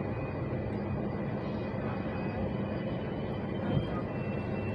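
Moving passenger train heard from on board: a steady rumble of the running train, with a faint high whine running through it.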